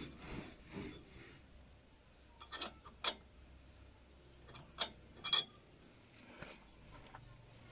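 Metal clinks and knocks as the steel hub and splined axle shaft of a Cat 434E backhoe loader's front axle are turned and shifted by hand: a few sharp clinks, two in quick succession about two and a half seconds in, then two more about five seconds in, the last the loudest.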